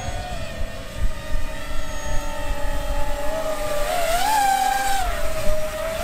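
Electric motors and propellers of a Cyclone Drone TriMode VTOL tricopter buzzing in flight. The pitch wavers throughout, then swells and rises about four seconds in as the drone sweeps low past close by, and falls back after.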